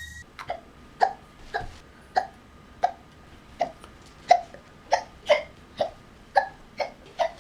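A young child hiccuping over and over, about thirteen short, sharp hiccups at roughly two a second.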